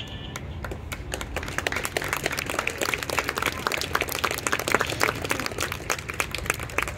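Audience applauding: many hands clapping that swell about a second in and stop abruptly near the end.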